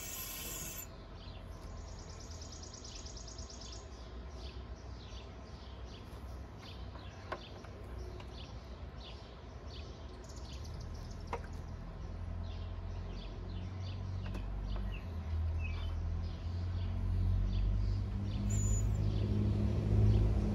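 A short sharp hiss as the valve on the vacuum coolant refill tool is opened, followed by a fainter hiss for a couple of seconds. Birds chirp throughout, and a low rumble builds and grows louder over the last several seconds.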